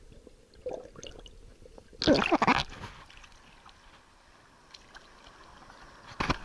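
Sea water around an action camera as it comes up from underwater: faint muffled gurgling, then a loud splash of water about two seconds in as it breaks the surface, followed by faint lapping of small waves and another splash near the end.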